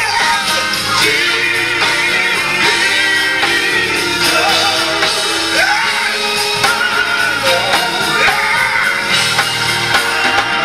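Live gospel quartet music: several men singing into microphones, loud and continuous, with shouted, yelled lines.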